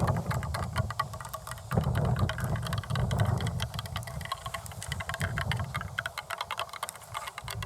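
Long acrylic nails scratching and tapping in quick, dense clicks, with a heavier low scratching rumble in the first half that eases off after about four seconds.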